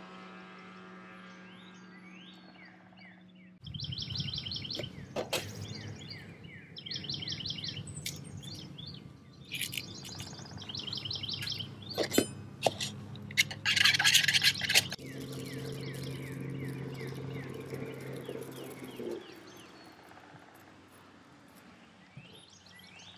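Birds chirping and singing short repeated phrases over the low, steady drone of a distant engine that fades out later on, with a few sharp knocks.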